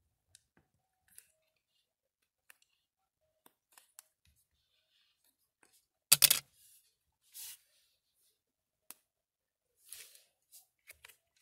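Butter slime being squished and pulled apart by hand: scattered soft clicks and sticky crackles, with one louder burst about six seconds in.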